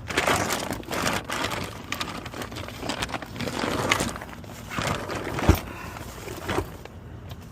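Irregular scraping and rustling handling noises, with a sharp knock about five and a half seconds in.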